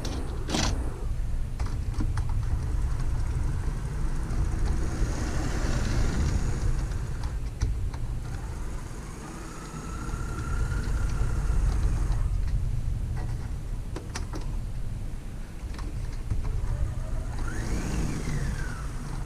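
Athearn Blue Box SD40T-2 HO-scale model locomotive running on track, its motor and gears giving a steady low rumble with a few sharp clicks. A faint whine winds up in pitch near the middle and rises then falls near the end as the speed changes.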